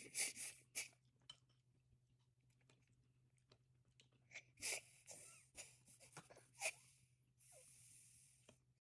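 A toddler chewing finger food, faint, with many small wet mouth clicks and lip smacks and three noisy breaths through the nose.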